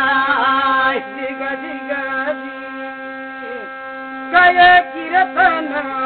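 Steady humming drone of a thali, a brass plate sounded by rubbing a stick set upright on it, with a man's chanting voice over it that trails off about a second in and returns in short, loud sung phrases a little past the middle.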